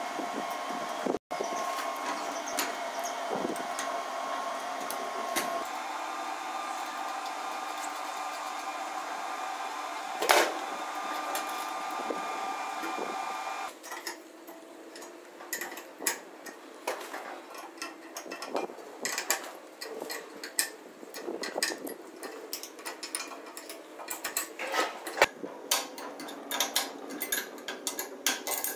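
A steady mechanical hum with a few fixed tones, which stops about halfway through. After it come many irregular metal clicks and taps of an open-end spanner working hex nuts down on bolts through a steel plate.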